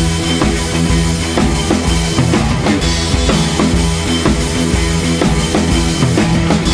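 Background music with a steady drum-kit beat, about two hits a second.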